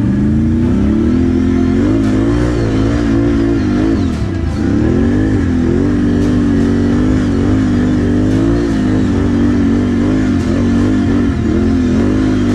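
ATV engine revving hard under load, its pitch rising and falling again and again, with a sharp dip and recovery about four seconds in.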